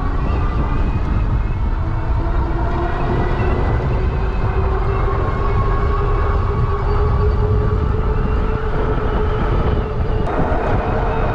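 Engwe EP-2 Pro e-bike's 750 W electric motor whining as the bike accelerates toward top speed, the whine climbing slowly in pitch, under heavy wind buffeting on the microphone and fat-tyre road noise.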